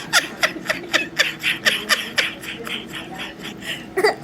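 A person laughing in a fast, even run of short breathy pulses, about four a second, fading off near the end.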